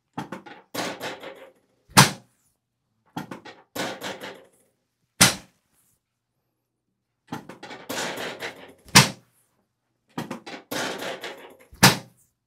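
Chiropractic drop table's drop section releasing with a sharp clack four times, about every three seconds, as spinal adjustment thrusts are given. Softer rustling comes before each drop.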